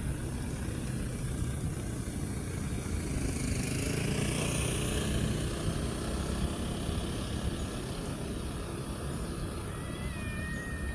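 A vehicle passing, its sound swelling and fading around the middle over a steady low rumble; near the end a cat gives one drawn-out meow lasting about a second.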